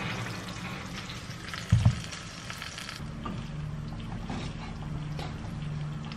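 A hot dish of baked salmon coming out of the oven: a hissing sizzle, with a thud about two seconds in as the dish or oven door comes to rest. Then a low steady hum with a few light clinks at the rice pot on the gas stove.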